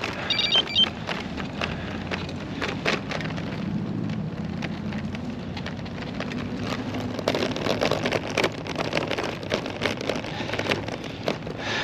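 River ice crackling and ticking densely over a low grinding rumble, as the ice builds up and piles on the water.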